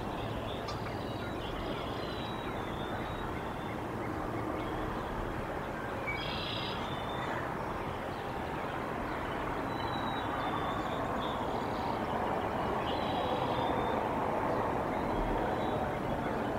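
Steady outdoor background rush with faint, short, high bird chirps now and then, growing a little louder in the second half.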